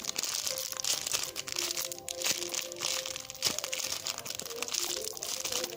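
Crinkling, crackling rustle of a foam squishy toy being handled and squeezed close to the microphone, over soft background music.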